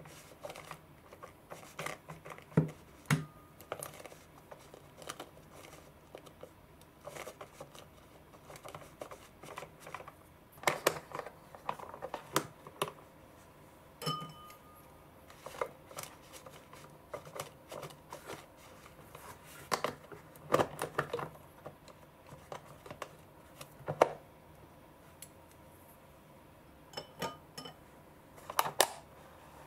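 Irregular light clicks and taps of chopsticks against the plastic rollers and frame of a roll sushi maker as leftover rice is picked off, with a couple of short squeaks.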